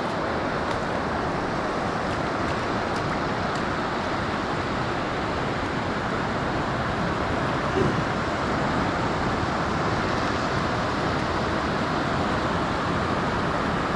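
Steady, even rush of surf and wind at the water's edge.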